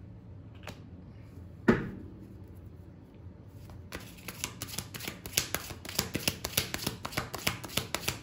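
Tarot cards being shuffled in the hands: a rapid, even run of card clicks, several a second, starting about halfway through. Before it comes a single sharp knock about two seconds in, the loudest sound.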